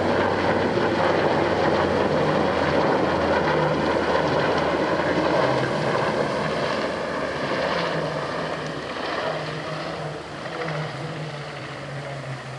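NH90 twin-turbine military helicopter flying past, its rotor and engine noise steady at first and then fading from about halfway as it turns away.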